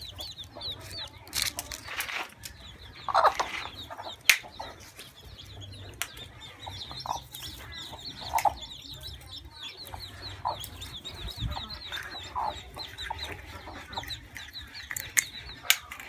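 Newly hatched chicks peeping in a fast, unbroken stream of short high chirps, with a broody hen giving a low cluck every few seconds. A few sharp knocks, the loudest about four seconds in and near the end.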